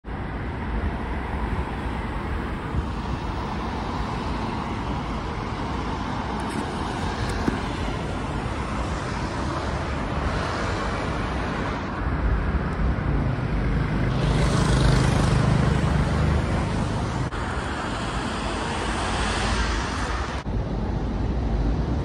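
City street traffic noise: a steady wash of cars and motorbikes going by. It swells louder and deeper for a few seconds past the middle as a vehicle passes close, and changes abruptly twice.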